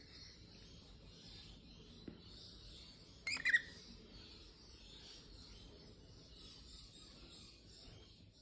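A cockatiel gives one short chirp of two quick notes about three seconds in, over faint steady room hiss.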